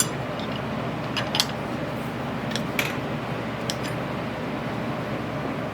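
Steady machine hum in a home machine shop, with a few light clicks of small metal tooling being handled and set down.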